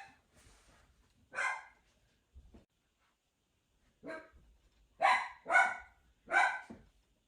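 A dog barking in short single barks, spaced out at first, then three loud barks in quick succession about five seconds in.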